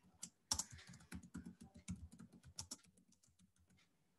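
Typing on a computer keyboard: a quick, faint run of key clicks, thinning out and getting quieter after about three seconds.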